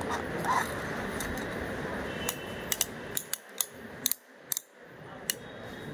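Hard plastic toy being handled and turned over in the hand, giving a run of sharp separate clicks in the second half over a steady background hiss that drops away midway.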